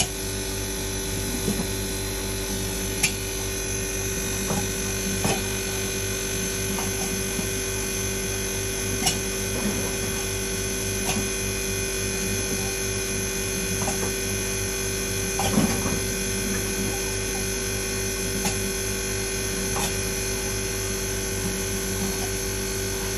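Ice maker running: a steady electrical hum with a low drone, broken by a few light clicks and taps.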